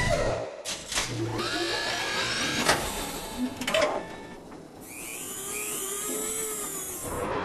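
Machine-like whirring with rising and falling whines and a few sharp knocks, then a steady high hiss under more whines over the last couple of seconds.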